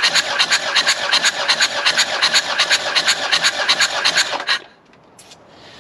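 Takeuchi excavator's diesel engine being cranked over on its starter, with rapid, even pulses of rasping noise, to use cylinder compression to blow out a stuck part that won't come out by hand. The cranking stops abruptly about four and a half seconds in.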